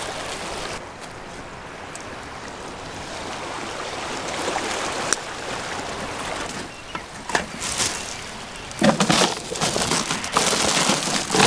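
Small waves washing and trickling among the rocks of a lava-rock shoreline, a steady watery hiss with a few clicks of rock. About nine seconds in, louder rustling and clattering as a fish is put into a cooler of ice and plastic.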